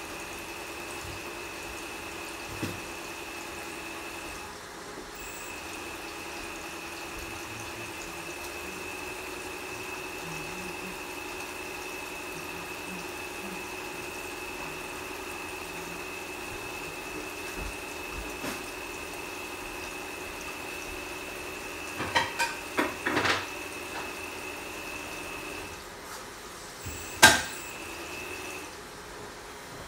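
Homemade water pump driven by a 4050 brushless motor running with a steady whine while water splashes; the whine dips briefly about four seconds in and stops a few seconds before the end. A few clicks come shortly before it stops, and a single sharp click follows just after.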